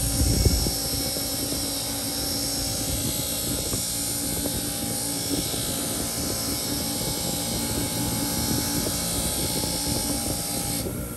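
8-inch bench grinder running with a wire wheel, a steel knife blade held against the spinning wire brush to clean off rust and scratches: a steady motor drone with rough brushing. A brief louder scrape comes right at the start.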